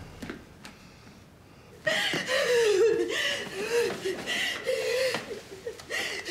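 A high-pitched voice laughing and giggling in short broken bursts, starting suddenly about two seconds in after a quiet moment.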